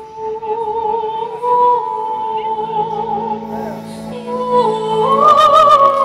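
Show music over loudspeakers: a high female voice sings long, operatic-style notes with vibrato over low held chords. About five seconds in the melody steps up in pitch and swells louder.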